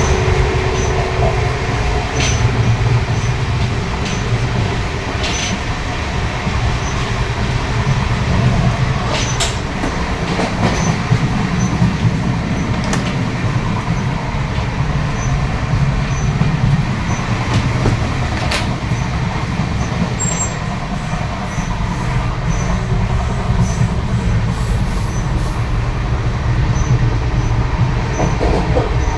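Passenger train running, heard from inside a coach: a steady low rumble with a few sharp clicks scattered through it.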